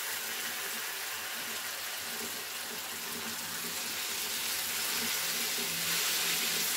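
Chopped tomatoes and green peppers sizzling in oil in a frying pan, a steady hiss that grows a little louder about four seconds in as the vegetables are stirred with a wooden spoon.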